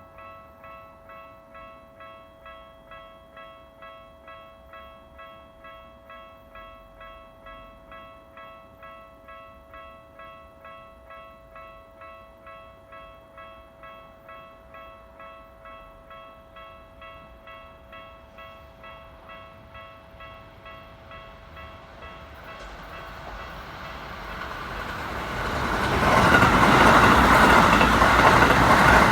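Japanese railway level-crossing alarm ringing its repeating electronic bell, about two strokes a second. In the last few seconds an electric train approaches and runs over the crossing, its rumble and wheel noise rising until they drown out the bell.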